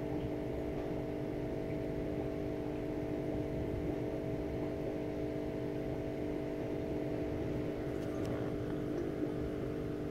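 Steady background hum of several fixed tones over a low rumble, unchanging throughout, with a faint click about eight seconds in.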